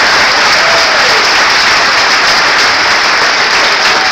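Audience applauding: dense, steady, loud clapping from a large crowd.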